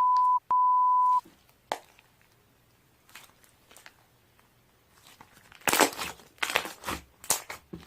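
A steady electronic beep tone, broken once and stopping a little over a second in, like a censor bleep. After a few quiet seconds with faint clicks, a run of loud crackly crunching, crinkling noises starts near the end.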